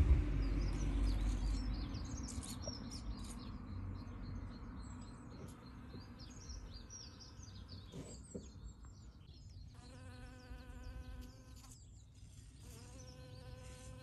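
Honeybees buzzing in flight close by: a steady hum about ten seconds in, and again from near the end, the second starting with a short rise in pitch. Small birds chirp in the background before that, and a low rumble at the start fades away.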